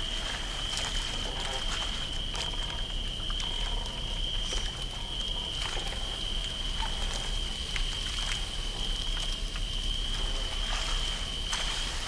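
Layered night river ambience: a steady high cricket chorus over a low rumble of water, with scattered soft clicks, drips and creaks.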